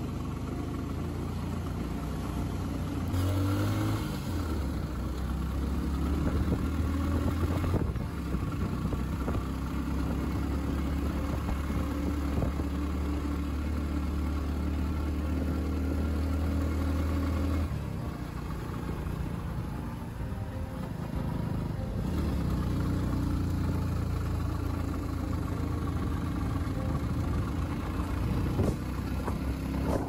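Vehicle engine running under load as it climbs a narrow uphill road. Its note shifts a few times, with a dip in level about halfway through.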